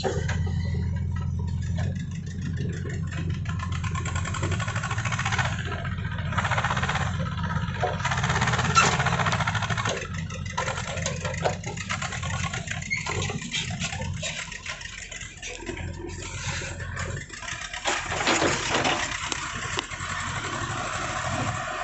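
JCB 3DX backhoe loader's diesel engine running and working under load, with intermittent clattering and scraping noise on top. The low engine hum weakens about fifteen seconds in.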